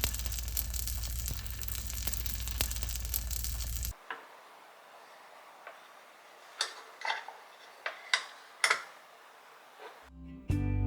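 A steady rushing noise with a low hum under it stops abruptly about four seconds in. Then a handful of short, light clicks and taps follow, spaced irregularly.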